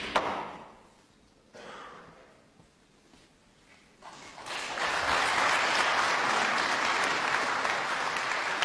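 A sharp click of snooker balls right at the start, then about four seconds in the audience breaks into steady applause.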